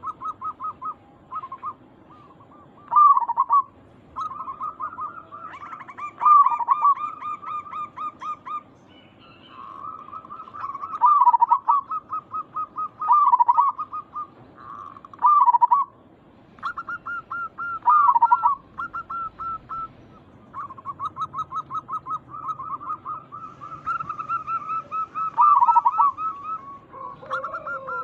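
Zebra dove (perkutut) cooing: runs of rapid, staccato notes, each run broken by louder dipping coos every couple of seconds.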